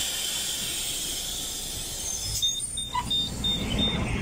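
Apron bus's pneumatic doors opening with a sudden loud hiss. About halfway through, a click, then a quick run of five short high beeps.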